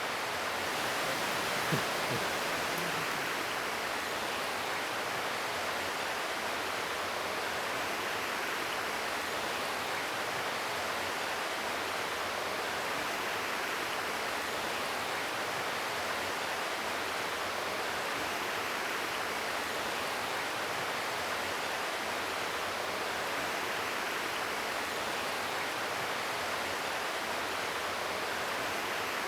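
Steady rushing of flowing water, with one soft knock about two seconds in.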